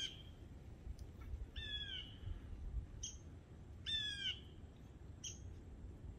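A bird calling in the woods: two short, slightly falling calls about two seconds apart, with a few brief high chips between them.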